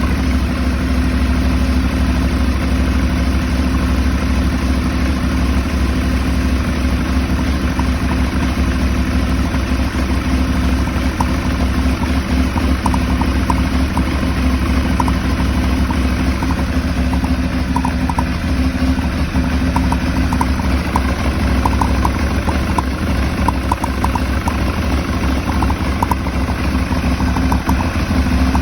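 Aprilia Shiver 750's 90-degree V-twin idling unevenly, a rough idle that the owner suspects may come from a throttle body problem. Faint light ticking shows up in the second half.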